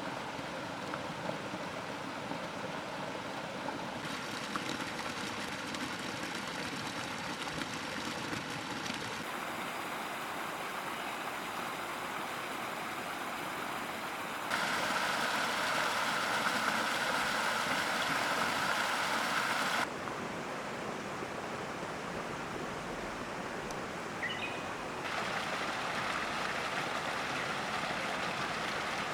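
Steady rushing of running water, changing abruptly in loudness and tone several times, the loudest stretch about halfway through.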